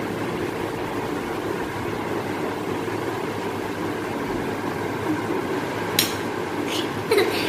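Steady background noise like a running fan, with a few sharp clinks of a metal spoon against a plate about six seconds in and again near the end.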